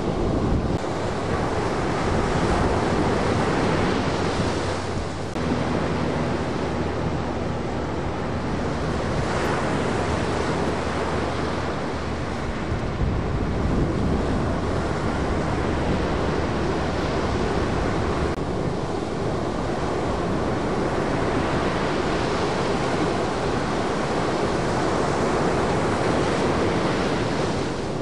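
Ocean surf breaking and washing ashore, a continuous rush that swells and eases every few seconds, with wind on the microphone.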